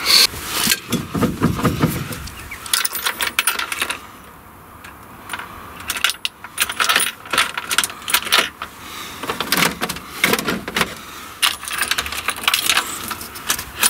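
A bunch of keys jangling and clicking at the ignition as the key is worked by hand, in short rattling bursts with a brief lull about four seconds in.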